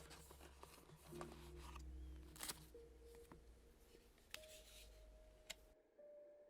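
Faint clicks and brief rustles of cardboard and plastic packaging being handled, over soft background music with sustained notes.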